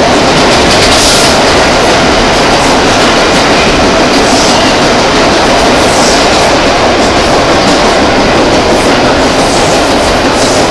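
Vintage IRT Lo-V subway car running at speed through a tunnel, heard from inside the car: a loud, steady wheel-on-rail running noise with brief high screeches now and then.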